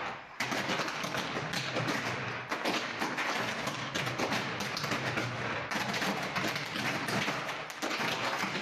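Overhead electric power lines clashing and arcing: dense, rapid crackling with many sharp pops, starting about half a second in.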